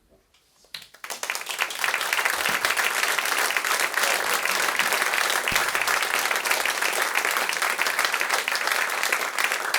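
Audience applauding, breaking out suddenly about a second in after a moment of quiet and holding steady as dense clapping.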